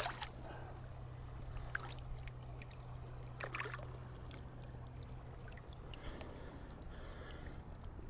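Shallow creek water lapping and trickling around an angler's waders as he stands in the stream, with a couple of brief splashes, over a steady low rumble.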